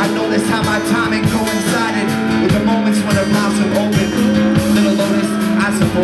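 Live band music: acoustic guitar and drum kit playing over held low notes, with regular drum hits.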